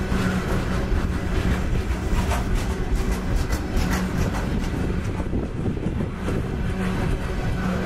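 Freight cars rolling past: a steady rumble of steel wheels on rail, with repeated clicks as the wheel sets run over the track.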